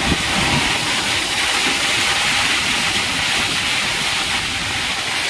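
Heavy rain pouring down, a steady dense hiss of falling water.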